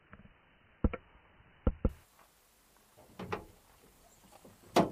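Sharp knocks and clunks from a Suzuki Jimny's doors and rear door being worked: a single knock about a second in, a quick pair shortly after, a small cluster past the middle, and the loudest knock near the end.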